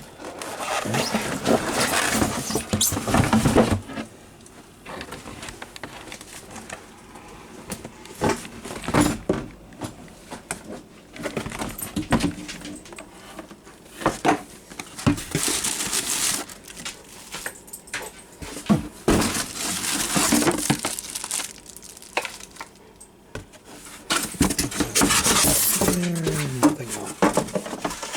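Cardboard box and plastic packaging handled and rustled in several bursts of a few seconds each, with scattered knocks and clicks between them.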